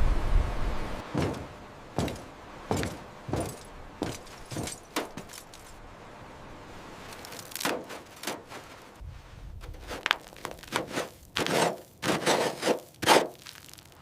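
An irregular series of short knocks, clanks and scrapes, spaced about half a second to a second apart and coming thicker and louder near the end.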